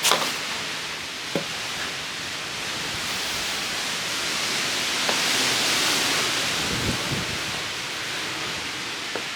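Wind rushing steadily, growing louder about halfway through, with a sharp knock right at the start and a smaller one just after.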